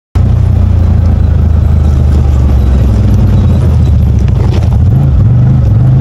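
CFMOTO ZFORCE 950 HO Sport side-by-side's V-twin engine running loud and close, its pitch rising briefly about four to five seconds in.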